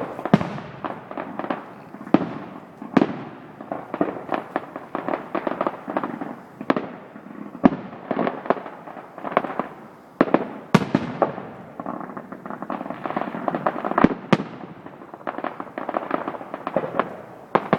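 Fireworks going off in quick succession, a dense run of bangs and crackling pops with a few louder booms standing out.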